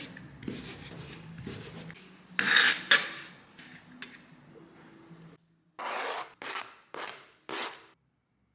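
Rasping, scraping strokes of kitchen work: two loud ones about two and a half seconds in, then four shorter strokes about half a second apart near the end.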